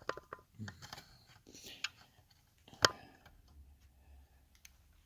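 Light clicks and taps of small objects being handled and set in place on a lock-picking setup, with one sharp click about three seconds in.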